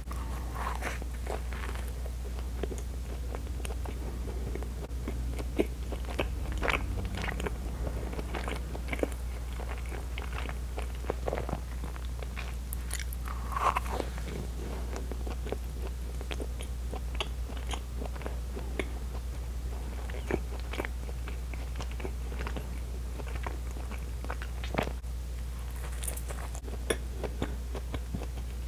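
Close-miked chewing and biting of soft bread rolls: irregular wet mouth clicks and smacks, over a steady low hum.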